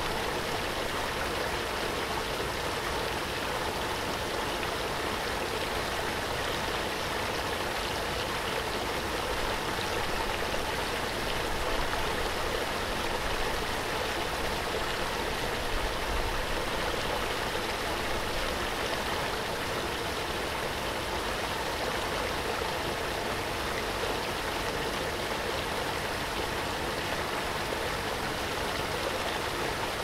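Waterfall: falling water splashing in a steady, even rush with no breaks or changes.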